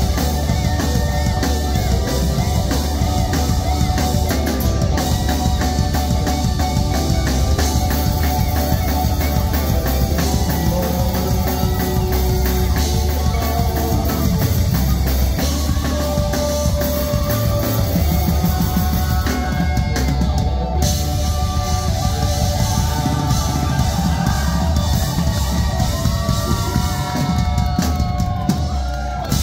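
Live rock band playing a loud jam on electric guitars, bass guitar and drum kit, with a lead guitar line gliding over the top.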